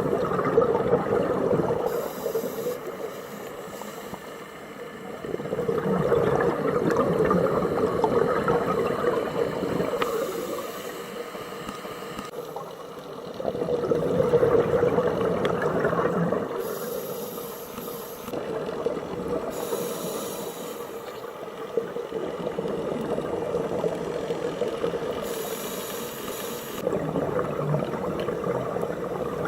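Scuba diver breathing through a regulator underwater: a short hiss on each inhale, then a long rush of exhaust bubbles on each exhale, about five breaths.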